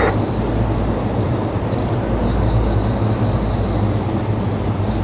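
Jet aircraft engines running: a steady, loud low rumble with a faint high whine above it.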